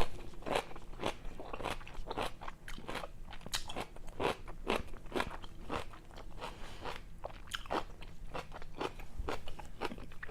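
Close-up chewing of crunchy food, likely the sesame salad, in a steady rhythm of about two to three crisp crunches a second.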